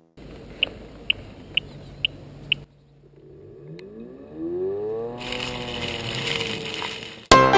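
Five short high beeps about two a second over a low hum. Then the Husqvarna Automower 330X's electric blade motor spins up in a rising whine that levels off, with a hiss joining about two seconds later.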